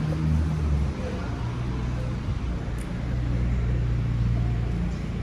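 A steady low engine rumble running, with a light hiss over it.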